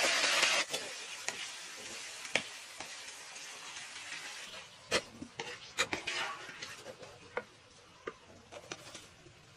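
Giant water bugs and red chilies deep-frying in hot oil in a wok: a loud sizzle that drops sharply under a second in, then fades. Scattered clicks and scrapes of a wire strainer against the wok.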